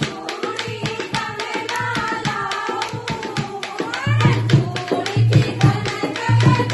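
Devotional bhajan music: a dholak playing a fast, steady rhythm under a melody line, its deep bass strokes growing louder about four seconds in.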